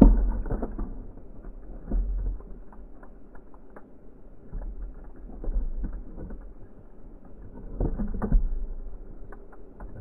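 House sparrows pecking and shuffling in sunflower seed on a wooden platform feeder: many small irregular clicks and taps, with a low rumble and a few louder thuds, at the start, about two seconds in and about eight seconds in.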